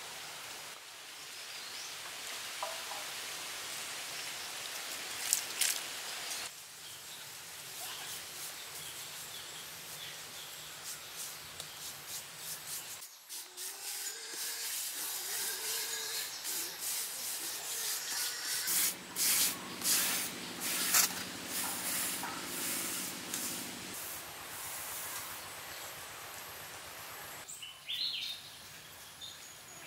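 Hands scraping and smoothing wet cement render, over a steady hiss of forest ambience, with a few short bird calls near the end.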